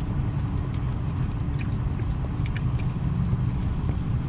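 Steady low rumble of a car idling, heard inside the cabin, with faint scattered wet clicks of a dog licking a soft-serve ice cream cone.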